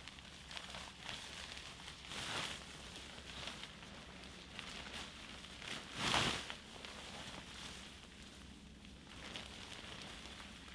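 Irregular rustling and crinkling from camping gear being handled during setup, with a louder rustle about six seconds in.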